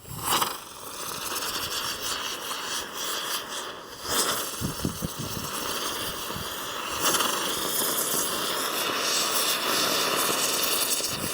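Lotus lantern ground fireworks spraying sparks with a steady hiss that starts suddenly, flaring louder about four and about seven seconds in.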